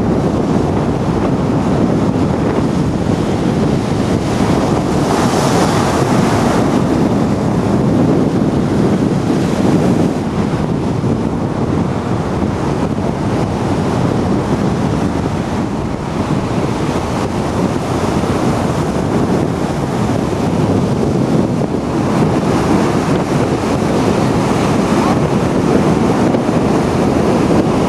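Strong wind blowing across the microphone over the continuous rush of surf breaking on a sandy beach, swelling and easing in gusts.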